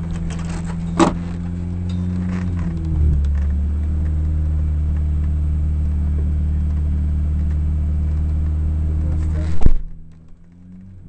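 Rally car engine idling steadily, heard from inside the cabin, with its note shifting about three seconds in. A click comes about a second in, and a loud knock near the end, after which the engine sound drops much quieter.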